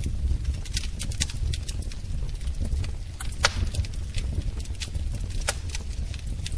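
Wood fire in a fireplace crackling: a steady low rumble of the flames with irregular sharp pops and snaps, the loudest pop a little past three seconds in.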